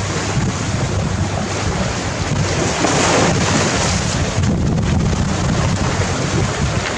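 Sea waves crashing onto a gravel beach, a wave surging up louder about three seconds in, with wind buffeting the microphone.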